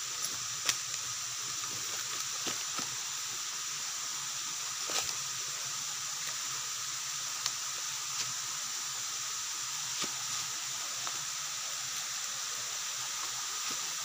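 Steady hiss of a rocky river's rapids rushing, with a few scattered light crackles and snaps of footsteps on dry leaf litter and twigs.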